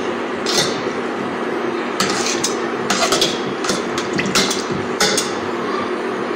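Metal spoon clicking and scraping against a stainless steel saucepan while pushing a block of paraffin wax around as it melts, in a run of clinks mostly in the middle, over a steady background hum.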